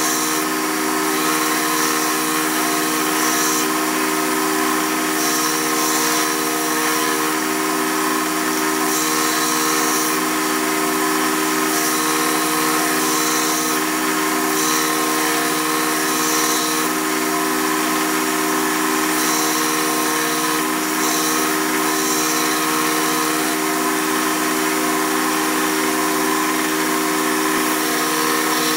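Belt grinder running steadily while a steel dagger blade is ground against its abrasive belt, throwing sparks. A high grinding hiss swells and eases every second or two as the blade is pressed to the belt and moved.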